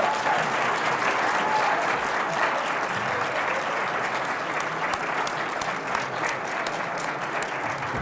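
Audience applause: many hands clapping together in a steady patter that eases slightly toward the end.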